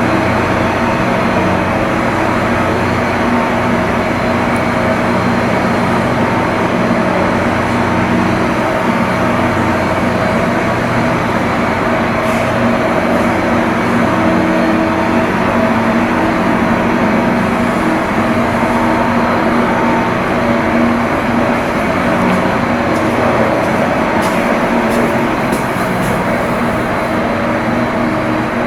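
Heavy machinery running steadily: a continuous hum with several steady low tones over a noisy rush, unchanging throughout.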